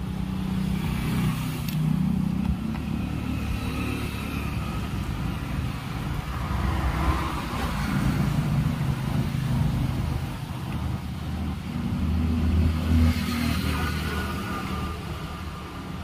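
Engine noise of passing road vehicles: a low rumble that swells and fades several times, loudest about a second in, around the middle and near the end.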